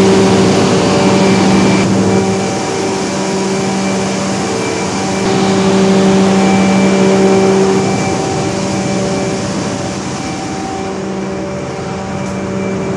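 Large Cummins standby generator sets running steadily under load, a loud continuous drone with a strong low hum. It eases off a little over the last few seconds.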